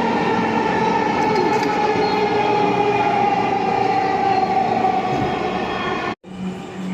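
Metro train running: a steady rumble with a high electric whine that slowly falls in pitch. It cuts off abruptly near the end.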